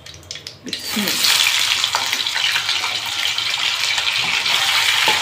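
Paneer cubes dropped into hot oil in a kadai, the oil starting to sizzle loudly a little under a second in and then sizzling steadily as more cubes go in.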